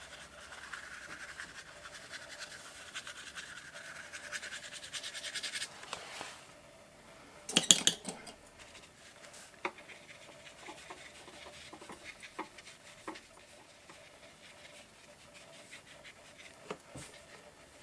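Paintbrush scrubbing and dabbing paint onto paper, a rapid dry scratching for the first five or six seconds. About eight seconds in comes one short, louder rustle of the paper, then only faint occasional light taps of the brush.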